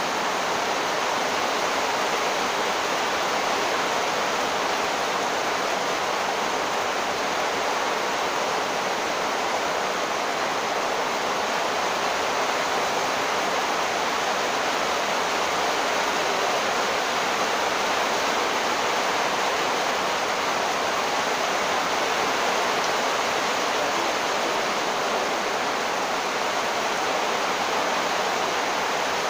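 Torrential rain falling without a break, an even, steady hiss.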